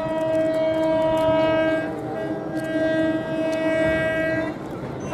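Electric multiple unit local train sounding its horn in two long blasts of one steady pitch, with a short break between them, over the rumble and clicks of the approaching train on the track.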